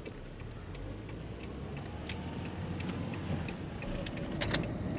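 Car engine and road rumble heard inside the cabin, getting louder as the car picks up speed, with a quick regular ticking of the turn-signal indicator over it.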